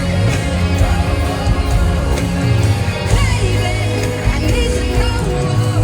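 Live pop concert music at loud volume, with a heavy bass line and a sung vocal line gliding above it.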